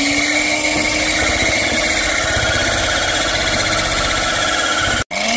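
Electric hand mixer running steadily, its twin beaters whirring through cake batter in a bowl. It cuts out about five seconds in, then starts again, its motor note rising as it picks up speed.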